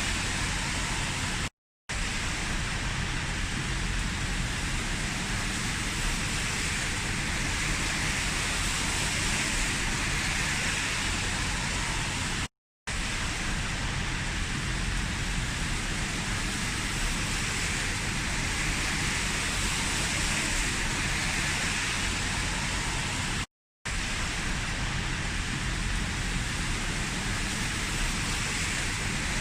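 Heavy rain falling steadily, an even hiss with some low rumble. The sound cuts out to silence briefly three times, about every eleven seconds.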